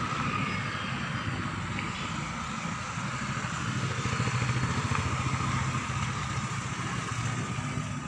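Motorbike engines passing along a road, the sound swelling about halfway through and easing off again.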